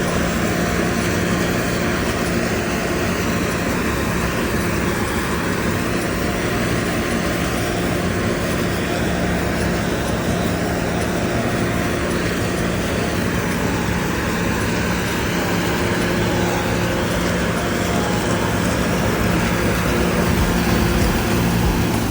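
Steady motor noise: a continuous dense hum with fixed low tones.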